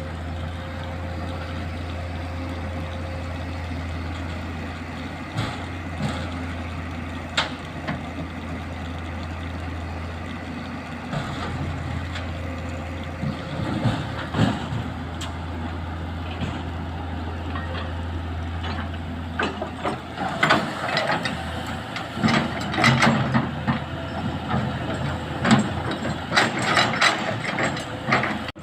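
Excavator diesel engine running steadily with a low hum. From about two-thirds of the way in, repeated sharp knocks and clattering of rock and metal take over.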